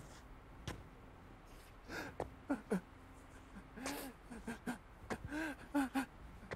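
A man sobbing: short gasping, choked whimpers that come in a cluster around the middle and again near the end, with a few sharp taps between them.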